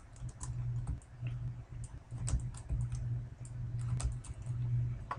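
Computer keyboard keys being pressed, a scatter of separate clicks at an uneven pace, over a steady low electrical hum.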